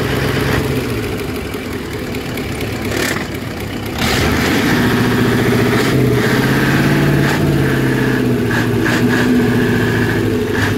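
Big modified long-tail boat engine running at low revs, then revved up about four seconds in and held at high revs as it drives the long-tail propeller.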